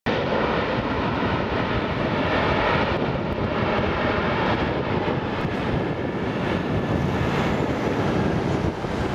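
Twin Rolls-Royce BR710 turbofans of a Gulfstream V business jet running at taxi power: a steady rushing noise with a faint whine that fades after the first few seconds.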